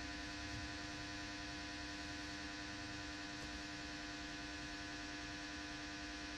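Steady, faint electrical hum with a buzzy edge, unchanging throughout.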